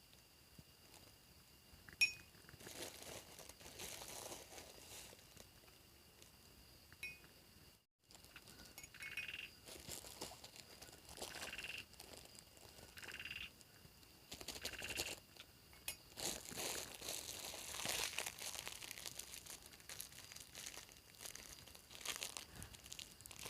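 Repeated rustling and crinkling in bursts of a second or two, with a sharp click about two seconds in.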